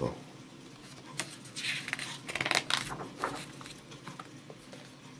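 Page of a large picture book being turned by hand: a crisp paper rustle with a few sharp flicks between about one and a half and three seconds in, then fainter rubbing and ticks as the page is laid flat.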